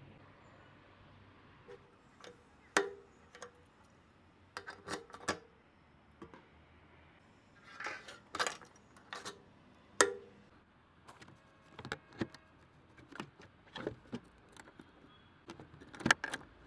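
A string of separate sharp clicks, snaps and taps from a Honda CBR400R's controls being worked up close: handlebar switch and lever, the key turning in the fuel-filler cap lock with a light jingle of keys, and the seat lock near the end.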